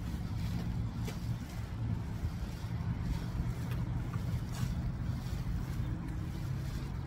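A steady low hum over a rumble, with a few faint short rustles.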